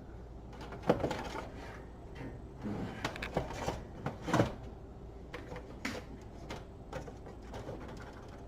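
Scattered knocks, clicks and rattles as the oven's latch assembly and its wiring are handled and pushed, with a cluster of knocks in the middle.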